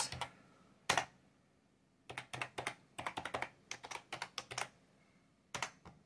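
Typing on a computer keyboard: a single key press about a second in, then a quick run of keystrokes, and two last presses near the end.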